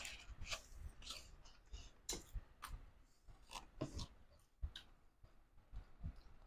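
Faint eating sounds: irregular sharp clicks and crisp crunches of mouths chewing fried fish, spaced unevenly, roughly one or two a second.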